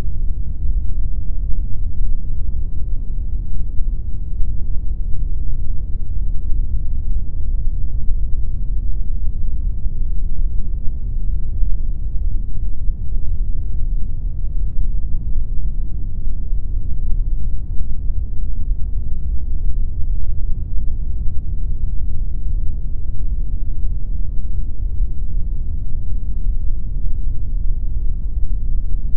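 Steady synthetic pink noise: an even, unchanging deep hiss with most of its weight in the low end and little treble.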